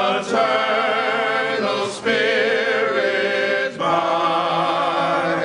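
A group of men singing a cappella in harmony: long held chords with vibrato, sung in phrases of about two seconds with short breaks between them.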